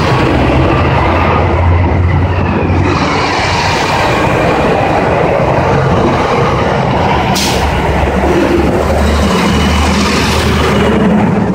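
Loud street traffic passing close: a box truck, then a minivan and a delivery van, with low engine rumble and tyre noise on asphalt. A short, sharp hiss about seven seconds in.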